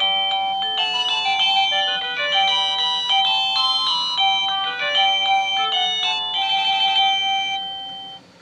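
Satu Brown wireless doorbell receiver playing one of its built-in electronic tunes: a quick melody of steady stepped notes, several at once, which fades away near the end.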